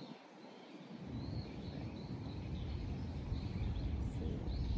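Outdoor ambience: a steady low rumbling noise sets in about a second in, with birds chirping faintly now and then over it.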